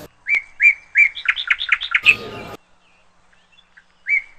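A bird chirping: short repeated notes that quicken into a fast run, then after a pause two more chirps near the end. A short burst of noise about two seconds in.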